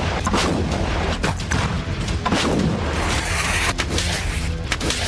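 Combat sounds of gunfire and artillery: an irregular string of sharp shots and booms over a steady low rumble.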